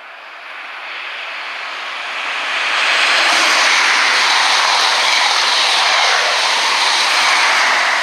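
A train passing through at speed: a loud rushing noise that builds over the first three seconds and then holds steady.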